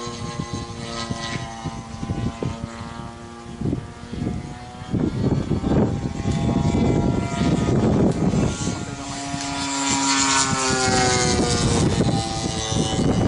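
A DLE 55cc single-cylinder two-stroke petrol engine turning a 23x8 wooden propeller on a 30% Sbach 300 RC aerobatic plane in flight, its note drifting up and down as it climbs. A loud rushing noise lies over the engine from about five seconds in.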